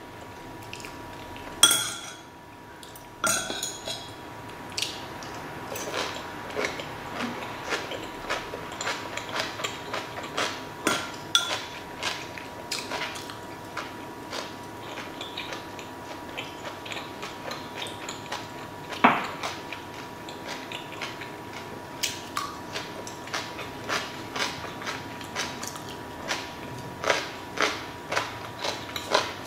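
Metal cutlery clinking and scraping against stainless steel food trays and a bowl, with chewing, in many small irregular clicks and knocks; a sharper knock comes about 2 s in and again near the middle. A faint steady tone sounds underneath.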